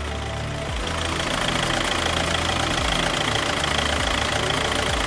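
A VW car's engine idling steadily during the DSG gearbox oil-level check, with a steady rushing noise that swells about a second in.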